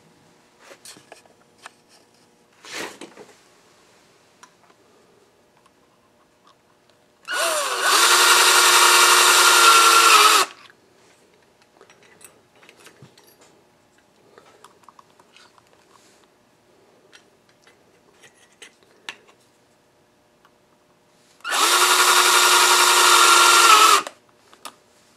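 Cordless drill/driver driving screws through a sheet-metal flange into a wooden cam: the motor runs twice, each run about three seconds, starting with a short rising whine and then holding steady. Small handling clicks between the runs.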